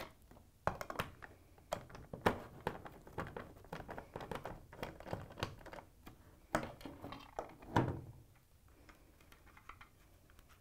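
Phillips screwdriver backing the screws out of a plastic switch enclosure: quick, irregular small clicks and ticks of the tool and screws. A few louder knocks follow about two-thirds of the way through, as the screwdriver is put down and the plastic cover is pulled off.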